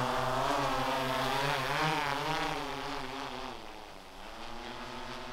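DJI Matrice 30T quadcopter drone flying low, its propellers giving a steady whine whose pitch wavers up and down as the motors adjust. The whine eases off and dips in pitch about four seconds in.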